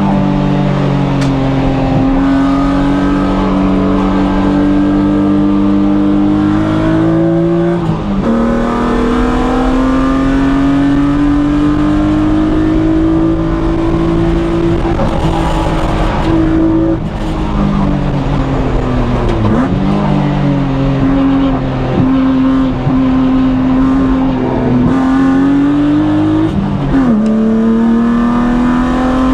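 BMW E36 M3 straight-six engine pulling hard under load on track. Its pitch climbs slowly through each gear and drops sharply at three upshifts, with a brief dip and recovery near the middle.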